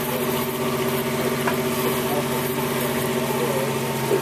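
Fishing boat's engine idling with a steady, even hum.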